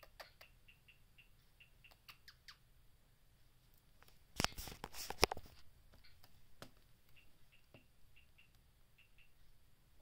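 Guinea pigs giving short, high squeaks, a few each second, with a couple of longer falling squeaks about two seconds in. A loud burst of rustling or scuffling about four and a half seconds in is the loudest sound.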